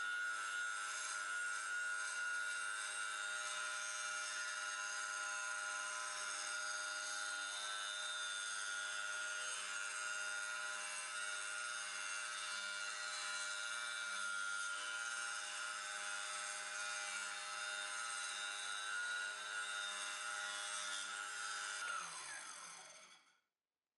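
Proxxon mini table saw running with a steady high whine while it rips a thin strip of MDF. About 22 seconds in it is switched off and winds down, its pitch falling until it stops.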